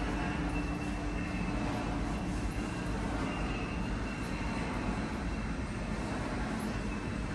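Steady low rumble with a faint constant hum, unchanging throughout.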